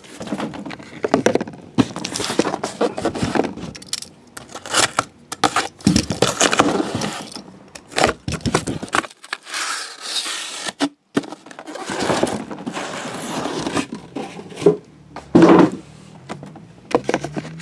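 Shrink-wrapped cardboard hobby boxes of trading cards being handled, slid and stacked by hand: irregular scraping with sharp knocks and clicks.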